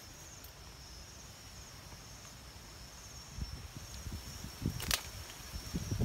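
Slingshot shot: a single sharp snap about five seconds in, over steady high-pitched insect chirring, with low rustling of movement in the last few seconds.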